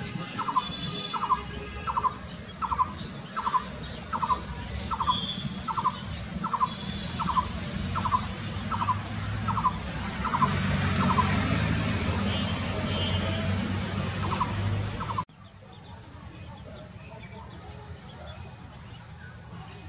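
A bird calling one short note over and over, about one and a half calls a second, over a low steady hum. The calls stop about halfway, come twice more, and then the sound drops suddenly to quieter background.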